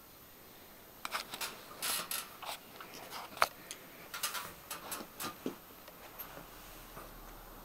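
Puppy crunching a hard, bone-shaped dog biscuit: a run of irregular crisp cracks and clicks starting about a second in and dying away a little past the middle.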